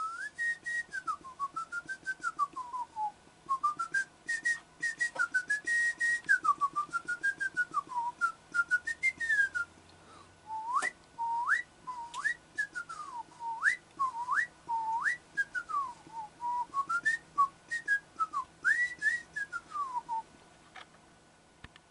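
A person whistling a tune: one clear whistled melody of many short notes rising and falling, with quick upward swoops to the high notes about halfway through.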